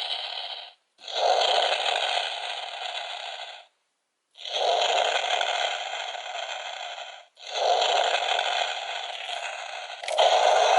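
Electronic sound effects from a Power Rangers Dino Fury toy's small speaker, played for the Dino Fury Keys: a harsh, noisy effect heard three times over and starting a fourth time near the end. Each starts abruptly and fades over about three seconds, with short silent breaks between.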